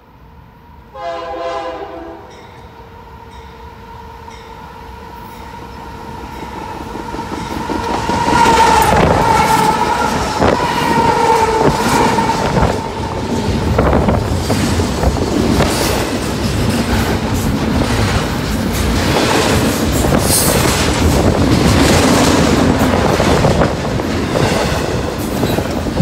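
Locomotive air horn on an approaching freight train: a short blast about a second in, then a long blast that grows louder as the train nears and stops about halfway through. A double-stack container freight train then passes close by, rumbling steadily with wheel clatter.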